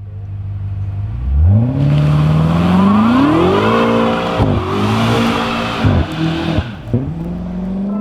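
BMW M5 F90's twin-turbo V8 idling, then revving up hard and accelerating. The pitch climbs steeply, breaks with a sudden drop about four and a half seconds in, and dips three more times near the end before climbing again, like quick gear changes.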